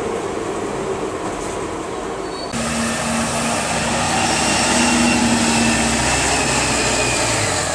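Hum of a city bus riding along, then a CNG-powered transit bus driving past at close range, its engine running with a steady drone and a high whine. The engine note drops near the end.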